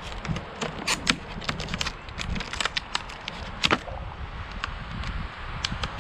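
Packaging of a wireless gate-opener keypad being opened and handled: irregular sharp clicks and crackles of plastic and cardboard, over a low steady rumble.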